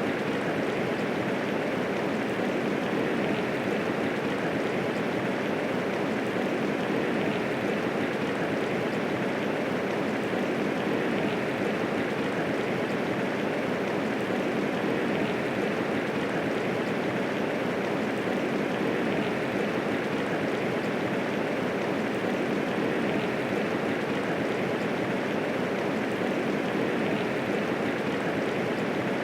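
Steady medium rainfall, an even rushing hiss with no thunder and no distinct drops standing out.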